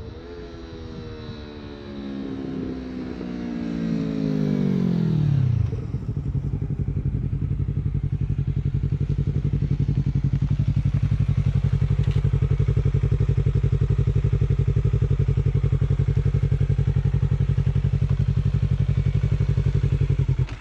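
Yamaha YZF-R3 parallel-twin with an Akrapovic GP slip-on exhaust growing louder as it closes in, its engine note falling steadily for about five seconds as it slows. It then settles into a steady, evenly pulsing idle close by.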